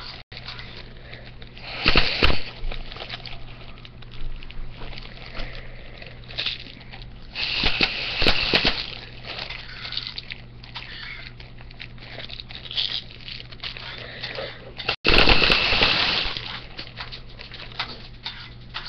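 Hard blowing into a homemade pill-bottle BB shooter: loud rushing bursts of breath through the pen tube, about 2, 8 and 15 seconds in, the later two lasting over a second each, with a steady low hum between.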